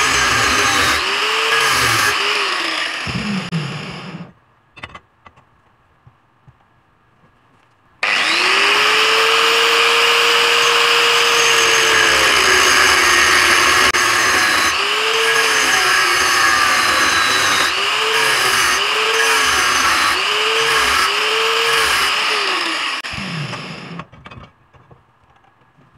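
Angle grinder with a thin cutoff disc cutting steel square tubing: its whine dips in pitch again and again as the disc bites into the steel. About four seconds in it is switched off and spins down. After a short pause it starts abruptly and cuts on, spinning down again near the end.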